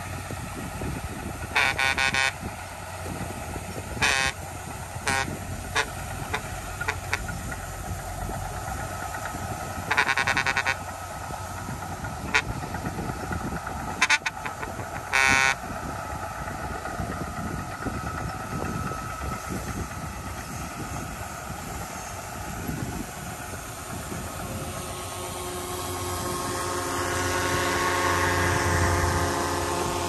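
Diesel engines of heavy earthmoving machinery, dump trucks and a bulldozer, running with a steady low rumble. A vehicle horn gives several short toots in the first half. Near the end an engine grows louder and its pitch shifts as it comes up under load.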